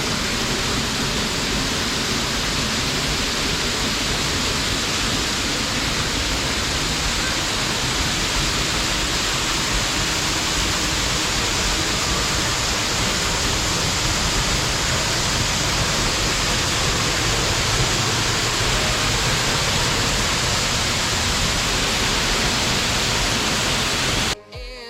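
A waterfall's falling water making a loud, steady roar with no rhythm or change, which cuts off suddenly near the end.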